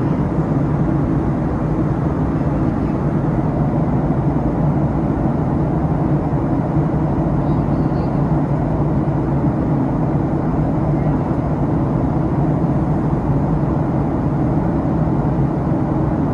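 Steady cabin drone inside a Boeing 737-800 airliner: the CFM56-7B engines and rushing air give an even, unbroken noise with a low steady hum.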